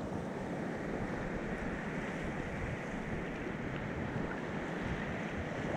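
Steady wash of small waves in shallow seawater, with wind buffeting the microphone.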